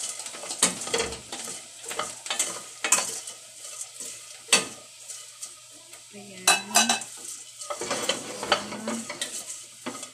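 Caramel-coated popcorn being stirred in a stainless steel pot on the stove: a spoon and spatula scrape and clink against the pot in repeated strokes, over a light sizzle from the hot caramel.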